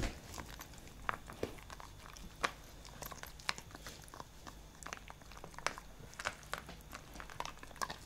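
Siberian husky gnawing a hard dried chicken-knot chew, with irregular crunches and clicks of teeth on the treat, one or two a second.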